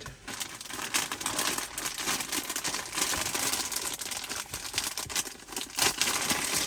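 Packaging crinkling and rustling as it is opened and handled, a continuous crackle mixed with small clicks.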